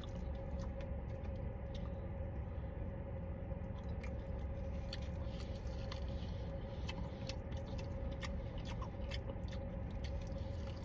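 A man biting into and chewing a fried chicken wing, with many small wet mouth clicks and little crunch, since the wing's skin is soft rather than crispy. A steady low hum runs underneath.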